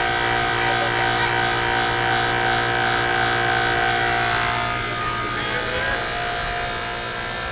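Portable 12-volt air compressor running steadily with a motor hum and a hiss of air, feeding a multi-tire inflation manifold whose lever is not fully set, so air is escaping instead of going into the tires. The sound drops slightly about two-thirds of the way through.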